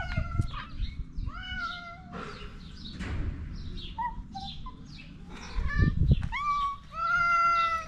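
Stray cats meowing for food: a run of short meows that bend up and down in pitch, ending in one long, loud meow. About two-thirds through there are a few dull thumps.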